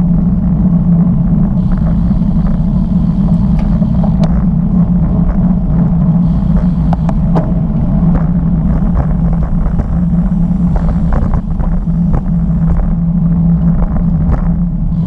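Steady low rumble of wind buffeting the microphone and tyres running on asphalt while a road bicycle rides at speed, with a few faint clicks above it.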